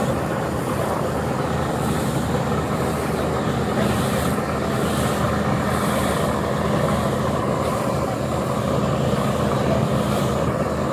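Boat engine running steadily with a low droning hum, under the rush of water and wind while under way on the river.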